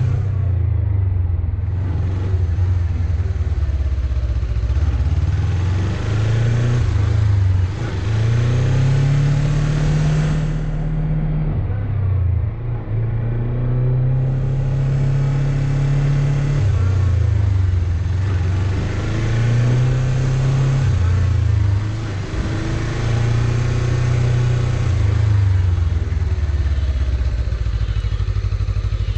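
Suzuki GSX250 motorcycle engine under way, its pitch rising and then dropping back again and again as the bike accelerates and shifts through the gears.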